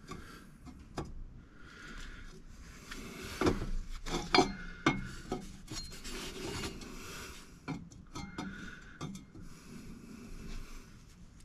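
Exhaust pipe sections being handled and test-fitted: rubbing and scraping, with a cluster of sharp knocks about three to five seconds in and a few lighter clicks after.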